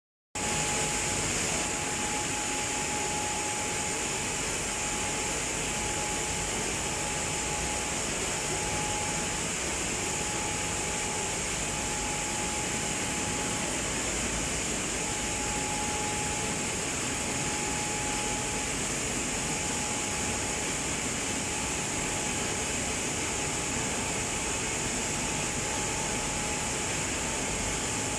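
Steady roar of industrial machinery at an aluminium melting and holding furnace, with a thin whine that fades in and out.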